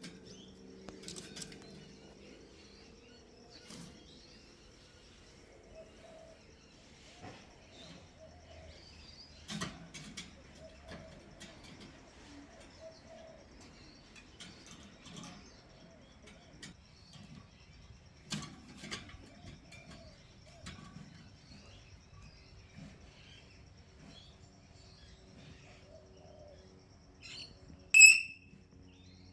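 A parrot moving about in its cage, with scattered wing flaps and light knocks, then one short, loud, high-pitched call near the end.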